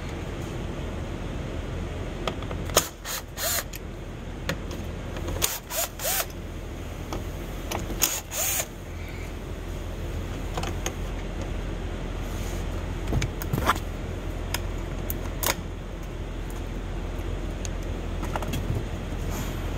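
Cordless drill/driver run in several short bursts, each spinning up and dying away, over a steady low hum. A few sharp clicks follow in the second half.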